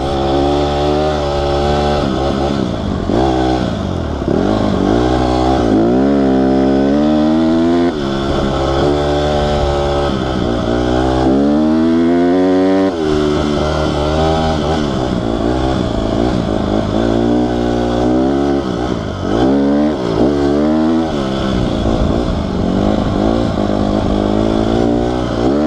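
Honda CRF150R dirt bike's single-cylinder four-stroke engine being ridden, its pitch rising and falling over and over as the throttle is worked. About halfway through it climbs for a long stretch, then drops sharply.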